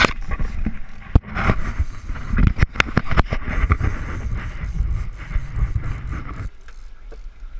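Handling noise of a camera being gripped and set in place: a run of knocks and rubbing against the housing over a low wind rumble on the microphone. The rumble cuts off suddenly about six and a half seconds in, leaving it much quieter.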